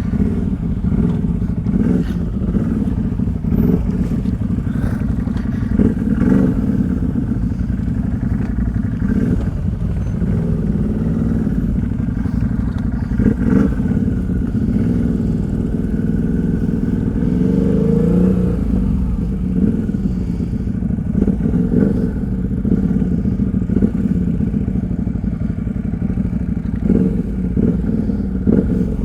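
ATV engine running under way, its pitch rising and falling as the throttle opens and closes, with rattles and knocks from the machine over rough ground.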